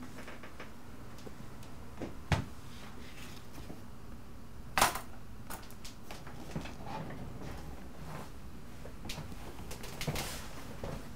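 Quiet room tone with scattered light clicks and knocks, one about two seconds in and the loudest, sharpest one about five seconds in, then a few smaller ones near the end.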